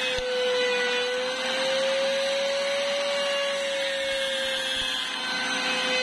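Electric motor spinning a sanding disc, with a steady whine that sags slightly in pitch now and then, and the rasping hiss of plywood being sanded against the disc.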